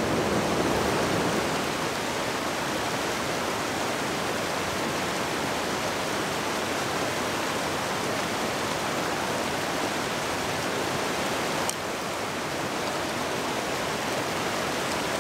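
Creek water rushing steadily over a small cascade and riffle between boulders.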